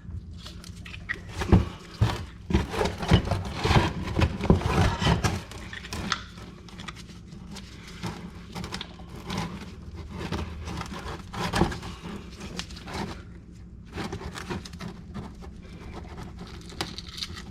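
Metal knocks, clicks and scraping as a stuck outer brake pad is pried and worked loose from the brake caliper; the pad is held on by glue on its back. A dense burst of sharp knocks comes in the first five seconds, then lighter scraping and ticking.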